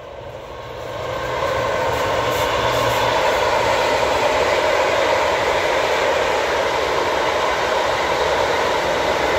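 Freight train of covered hopper wagons rolling past, a steady rumble and rattle of wheels on the rails that swells over the first second and a half and then holds steady.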